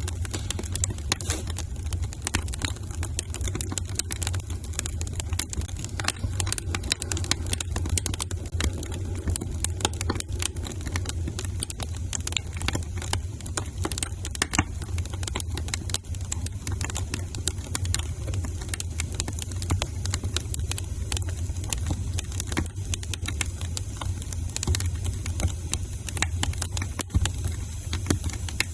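Fireplace fire crackling: many sharp, irregular pops and snaps over a steady low rumble of the flames.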